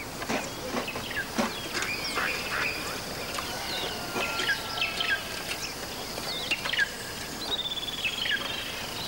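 Several birds calling: short chirps and whistled notes, with a rapid falling trill about seven and a half seconds in, over a steady high buzz.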